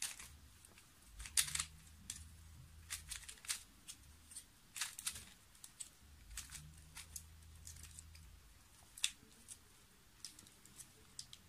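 Plastic 2x2x2 gear cube being turned by hand: faint, irregular clicking and rattling of its gear teeth and corner pieces as the layers rotate.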